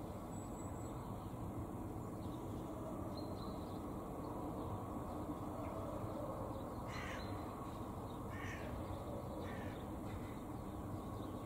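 A Eurasian magpie giving a few short calls in the second half, over a steady low background rumble.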